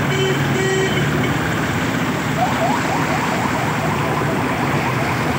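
A vehicle ploughing through deep muddy floodwater: a steady rush of water churning and splashing against its side, with its engine running. Near the start a horn-like tone beeps in short repeated notes, and in the middle a run of short rising chirps sounds.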